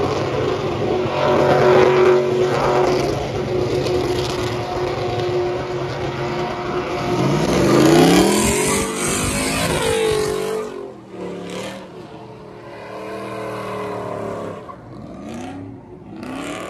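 A pickup truck engine is held at high revs during a burnout, tires spinning in thick smoke. About eight seconds in, the revs sweep up and down. They drop off sharply near the middle, followed by a few quieter, shorter revs.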